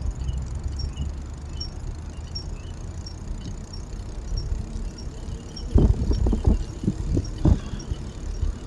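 Bicycle riding along a paved path: a steady low rumble of wind and tyres, with a faint high tick repeating about one and a half times a second. A cluster of sharp knocks and rattles comes a little past halfway as the bike goes over rough spots in the pavement.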